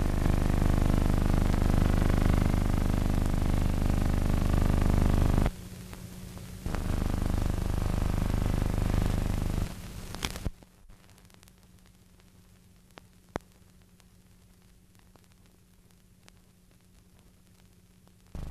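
Loud, steady low engine-like drone that drops off about halfway through, leaving a faint hum with a couple of sharp clicks.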